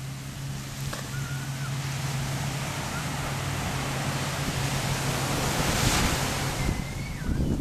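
Ocean surf washing in and swelling to a breaking wave about six seconds in, with wind buffeting the microphone and a steady low hum underneath. A few faint, short high-pitched squeaks come about a second in and near the end.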